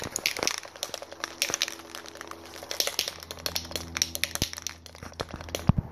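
A Rust-Oleum satin spray paint can shaken by hand, its mixing ball rattling in a rapid, uneven run of clicks.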